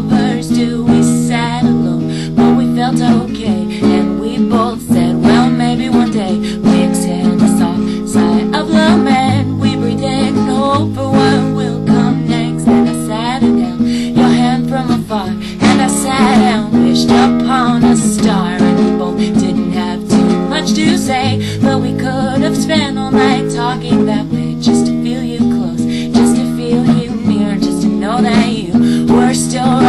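Acoustic guitar strung with only five strings, strummed in a steady run of chords.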